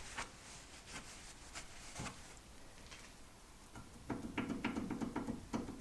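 A few light clicks and knocks, then from about four seconds in a quick, continuous run of scraping strokes: a hand tool clearing caked dirt from around a car's front lower ball joint.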